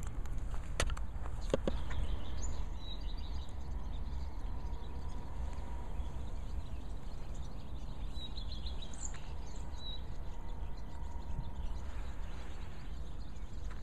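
Outdoor ambience by open water: a steady low rumble, a couple of sharp handling clicks from the handheld camera about a second in, and faint small-bird chirps now and then.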